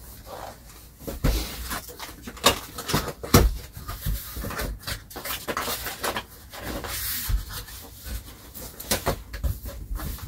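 Long cardboard shipping box being handled and opened: irregular knocks, scrapes and rustles, with a sharper knock a few seconds in.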